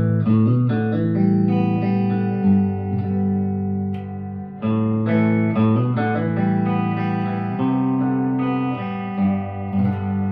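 1958 Guild Aristocrat hollowbody electric guitar being played: ringing chords with single picked notes between them, and a fresh chord struck about halfway through.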